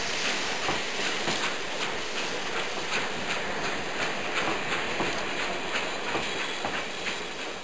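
Hornby OO gauge live steam model locomotive running: a steady hiss with regular light clicks as its wheels run over the track, fading near the end.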